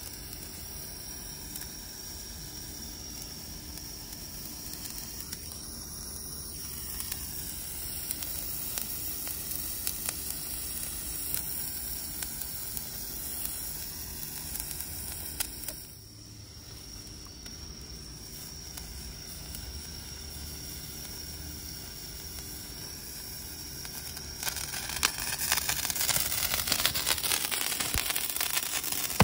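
Hand-held firework burning with a steady hiss and fine crackling. It dips briefly a little past halfway, then grows louder with denser crackle for the last few seconds.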